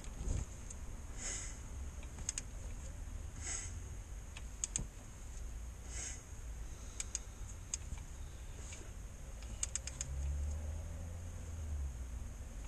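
Sharp metallic clicks and light knocks at irregular intervals, sometimes several in quick succession, as the crankshaft of a Mini Cooper S engine is turned over by hand with the oil pan off. It is the bottom-end knock that the mechanic is chasing and thinks could be a piston pin.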